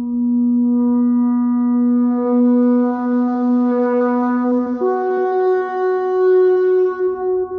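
Ram's horn shofar sounding one long held blast: a low steady note that grows brassier, jumps up to a higher note about five seconds in, and breaks off near the end.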